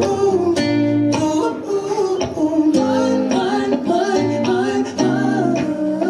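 Acoustic guitar strumming with singing, held notes changing every half second or so.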